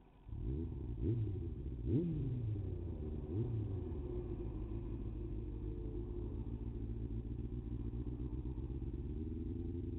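Kawasaki Ninja sport bike engine accelerating in several rising pulls, each dropping back, during the first few seconds. It then runs at a steady cruising pitch.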